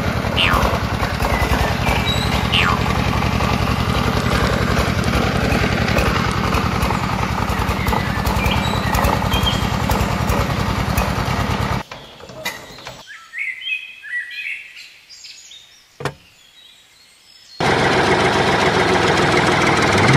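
Small motor of a miniature belt-driven grape crusher running steadily with a fast buzzing rattle, cutting off suddenly about twelve seconds in and starting again near the end. Birds chirp throughout, heard clearly in the gap, with one sharp tap during it.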